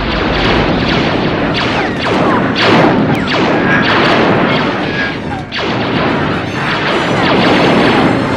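Sci-fi movie blaster fire in a rapid exchange: repeated laser-blaster shots, each a short zap falling in pitch, over booming blasts and crashing impacts. There is a fresh burst about every second.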